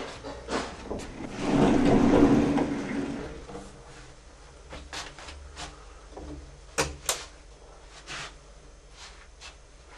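A door opening: a loud scraping rush lasting about two seconds, then a few scattered sharp clicks and knocks.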